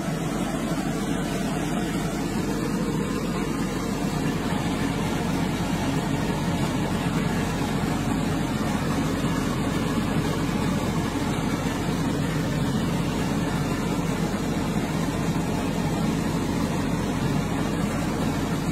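Cosmo 5MU30 under-cabinet range hood's blower fan running steadily: an even rush of air with a low hum under it.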